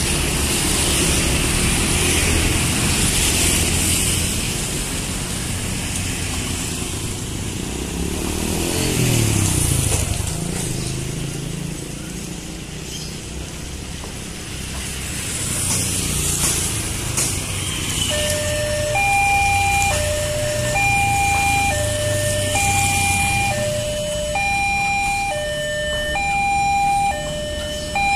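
Motor scooters running over a railway level crossing, their engines rising and falling as they pass. About eighteen seconds in, the crossing's electronic warning alarm starts: two tones alternating low and high, a little under a second each, the signal that a train is approaching and the barriers are lowering.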